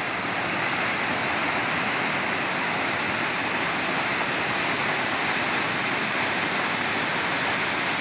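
Two tall waterfalls pouring down onto the rocks below, a steady, even rush of falling water with no change in level.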